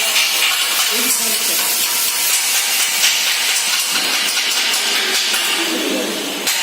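Welding: a loud, steady crackling hiss that dips briefly just before the end.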